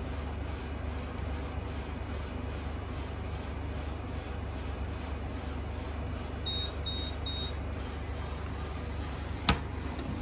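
Three short, high electronic beeps in quick succession about two-thirds of the way through, over a steady low hum, followed near the end by a single sharp click.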